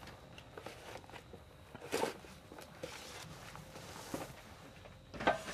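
Scattered footsteps, clothing rustle and light knocks of gear being handled, with a sharper knock about two seconds in and another near the end.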